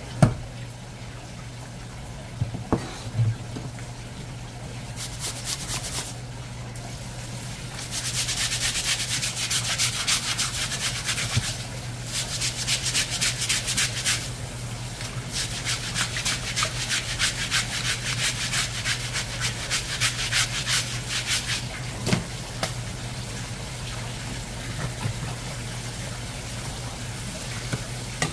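Rapid, rhythmic scraping strokes by hand in two long runs of several seconds each, over a steady low hum, with a few sharp knocks.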